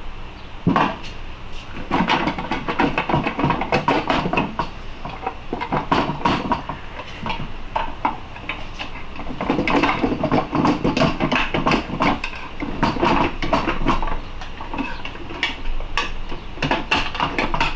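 Steel pry bars and hand tools clinking, knocking and scraping against a Honda K-series transmission case as the case halves are pried apart and the differential is worked off its bearing. It comes in irregular clusters of sharp metallic knocks, easing off for a moment about halfway through and again near the end.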